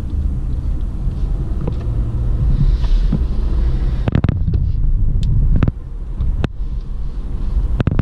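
Steady low rumble of a car's engine and tyres on the road, heard from inside the cabin. From about halfway there are several sharp knocks.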